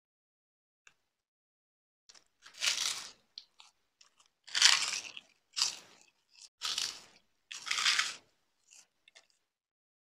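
Crisp white crackers crunching as they are bitten and chewed. After about two seconds of quiet comes a run of loud crunches, about five big ones with smaller crackles between them.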